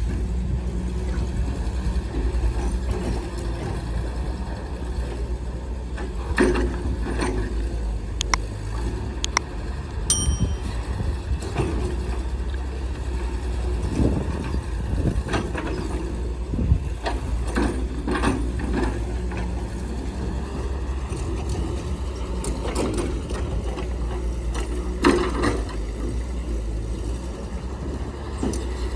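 Heavy diesel earthmoving machinery running steadily with a deep rumble, with scattered metallic clanks and knocks.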